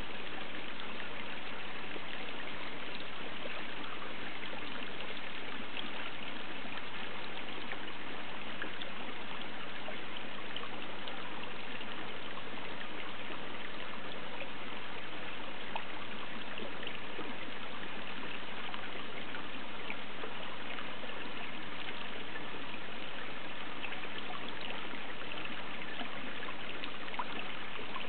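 Water trickling and splashing steadily into a garden koi pond, with a fine crackle of small splashes.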